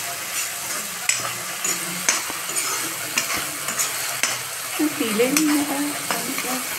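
Tomato masala gravy sizzling in hot oil in a kadhai, stirred with a spatula that scrapes and clicks against the pan every so often. A brief wavering tone comes in about five seconds in.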